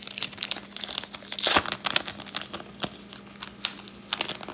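Foil trading-card pack wrapper crinkling and tearing as it is ripped open by hand, an irregular run of crackles with the loudest burst about a second and a half in.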